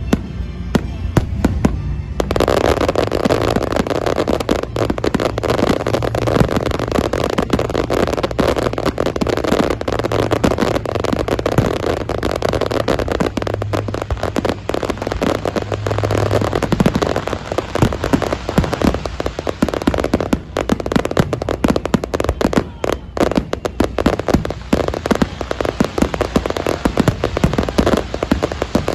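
Fireworks finale barrage: a dense, continuous rapid succession of shell bursts and crackles, which thickens suddenly about two seconds in.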